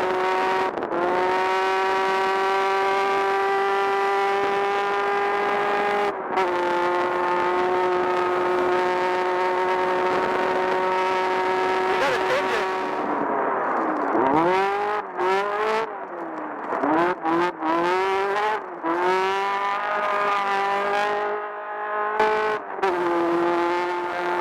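Off-road race buggy's engine pulling at high, steady revs, with a brief break about six seconds in and a slightly lower pitch after it. In the second half the revs rise and fall repeatedly, with several short cuts as the throttle is lifted and reapplied.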